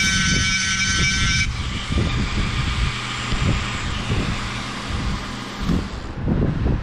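Flexible-shaft rotary tool with a small burr whining at high speed as it cuts jig marks into a bone knife handle. The whine stops sharply about a second and a half in, and a fainter hiss follows, fading out near six seconds. A low rumble from the shop fan, with handling thumps, runs underneath.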